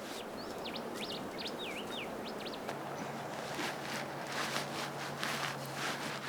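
A bird calls with a quick run of whistled notes that swoop up and down, over the first two and a half seconds. After that comes crackly rustling and snapping, like dry pine needles and twigs being pulled up and handled, with a faint steady low hum underneath.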